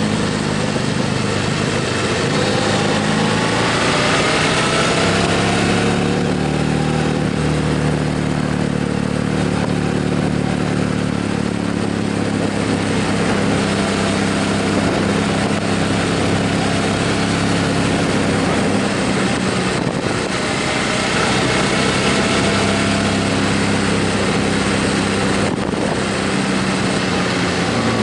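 Motorcycle engine running while riding, with steady wind rush; the engine pitch climbs as it speeds up a few seconds in and again about twenty seconds in.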